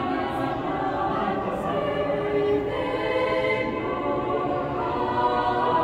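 Mixed choir of men's and women's voices singing a Christmas song in harmony.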